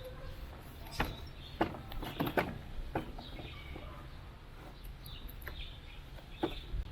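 Scattered sharp clicks and knocks, about six of them, over a low steady rumble, with faint high chirps between them. These are plastic air-conditioner parts and filter screens being handled during cleaning.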